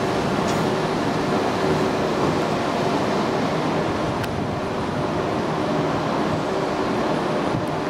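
London Midland Class 172 diesel multiple unit moving away along the platform, its underfloor diesel engines running with a steady hum over wheel and rail noise.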